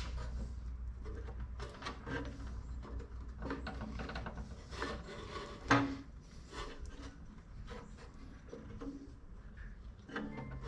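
Drill press belts being moved between pulley steps by hand: irregular scraping, rubbing and light clatter, with one sharper knock about halfway through.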